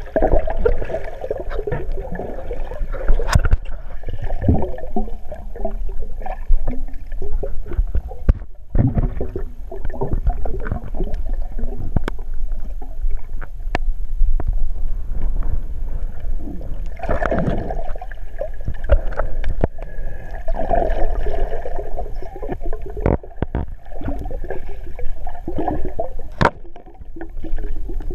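Water sounds recorded underwater: a steady, muffled low rumble and gurgling of moving water, with many sharp clicks scattered throughout.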